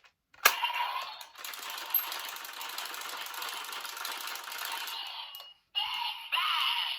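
Zenkai Buckle toy transformation belt being worked: a click, then about four seconds of fast, even rattling clicks, then short electronic sound effects from the toy's speaker near the end.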